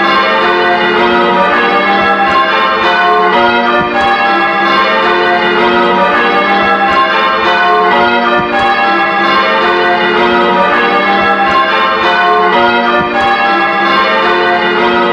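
Church bells rung full-circle in changes: a continuous cascade of strikes from several bells one after another, their tones overlapping and ringing on. This is the ring at St James's, restored, retuned and rehung in a new frame.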